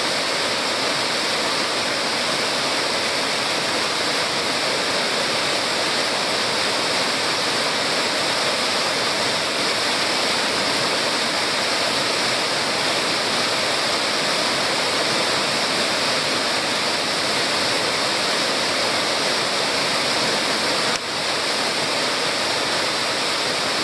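Waterfall pouring onto rocks close by: a steady, loud rush of falling and splashing water, with one brief dip about 21 seconds in.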